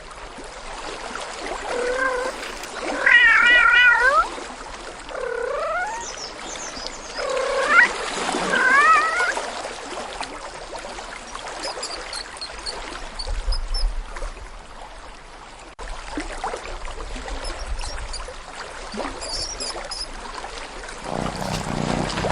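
A cat meowing several times in short wavering calls over a steady water-like rush, followed by faint high chirps.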